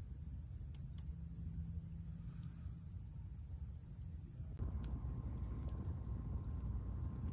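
Night insect chorus, a steady high-pitched trill, over a low rumble; it grows slightly louder about four and a half seconds in.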